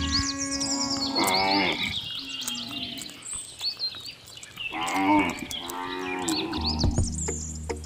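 Cattle mooing in long, drawn-out calls, with birds chirping over them, from a farmyard sound track: the toy cows themselves make no sound.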